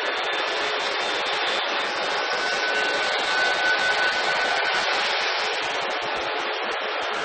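Steady rushing noise of a Boeing jet airliner's engines and airflow. A faint, thin, steady tone comes in about two seconds in and fades near the five-second mark.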